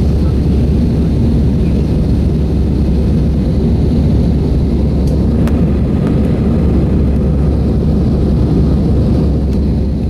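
Steady, loud rumble of an airliner's engines and airflow heard inside the passenger cabin, with a few faint clicks about halfway through.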